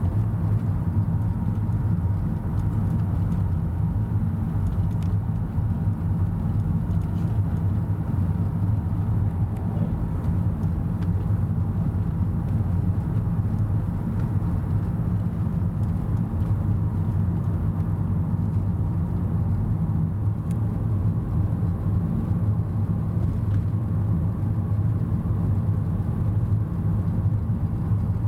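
Steady low engine and road-tyre rumble of a car driving along, heard from inside the cabin.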